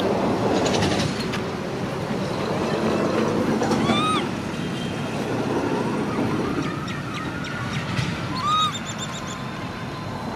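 Two short, high, arched animal calls, each rising then falling, about four seconds apart, over steady background noise.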